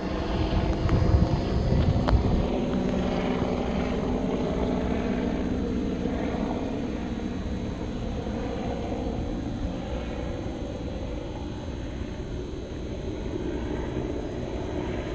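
A distant engine drones steadily, a low hum made of several tones. It is loudest in the first couple of seconds, with a sharp click about two seconds in, then eases slightly and holds.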